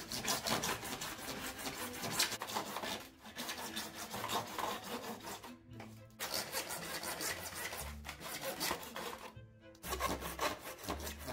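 Hand saw cutting through painted PVC pipe held in a plastic mitre box: quick back-and-forth rasping strokes, with short breaks about three, six and nine and a half seconds in between cuts.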